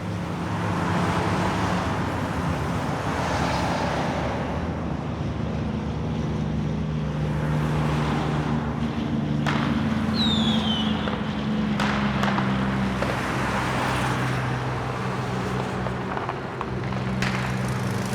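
A vehicle engine running steadily amid road traffic noise, with a few sharp clicks and a brief high falling squeal about ten seconds in.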